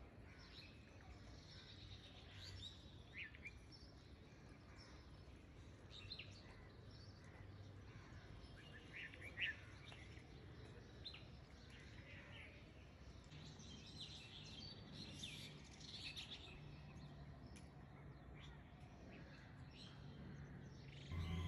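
Near silence, with faint, scattered bird chirps in the background.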